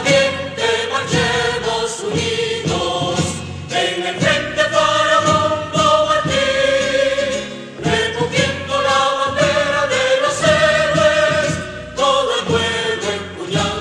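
Choir singing a Spanish-language marching anthem with musical accompaniment, in long held lines with short breaks between phrases.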